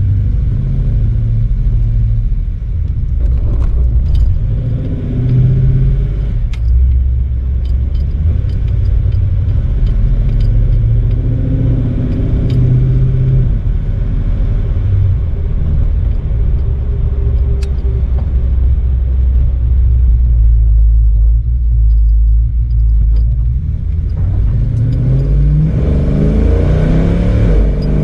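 Vintage car engine running with a low rumble and scattered light clicks and rattles. Near the end it speeds up, its pitch climbing steadily as the car accelerates.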